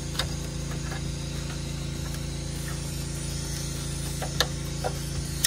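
Plastic wiring-harness connectors being handled and pushed together, giving a few sharp clicks: one shortly after the start and several near the end, the loudest about four seconds in. A steady low hum runs underneath.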